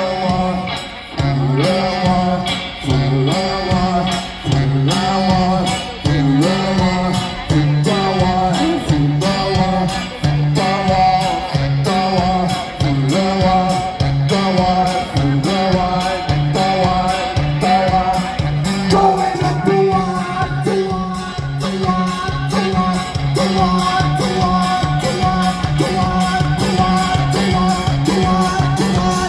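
Live rock band playing through a large stage PA: a repeating low bass riff, steady drums and a melody line over it, with some singing.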